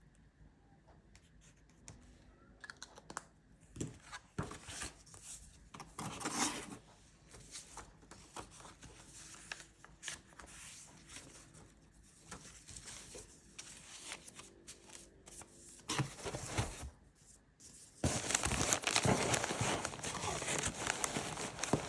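Packing material crinkling and tearing by hand in irregular bursts, turning into a denser, louder stretch of crinkling near the end.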